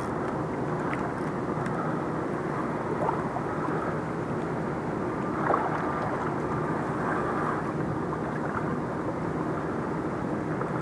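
A steady low rumble like a distant motor, with a couple of faint ticks about three and five and a half seconds in.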